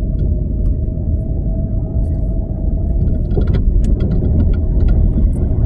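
Low, steady rumble of a car driving slowly, heard from inside the cabin, with a burst of small clicks and rattles about three seconds in.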